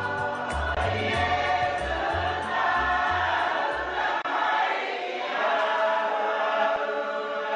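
Church choir singing a hymn, many voices together, over a low pulsing bass that stops about four seconds in, after which the voices carry on alone.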